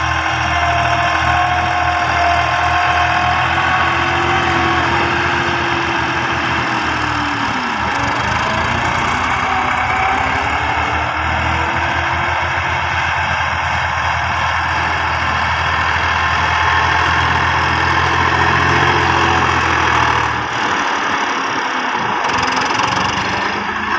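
Diesel farm tractor engines running steadily under load as the tractors level sand with rear blades. The engine note dips and recovers a couple of times, and the low engine throb changes near the end.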